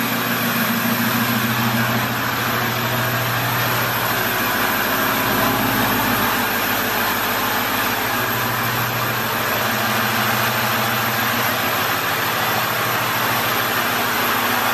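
Ford 6.0 Powerstroke V8 turbo-diesel of a 2006 F-250 idling steadily through a 4-inch straight-pipe exhaust.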